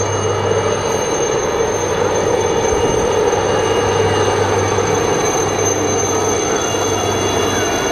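Two helicopters flying low past, their turbine engines and rotors making a steady drone with a thin, constant high whine over it.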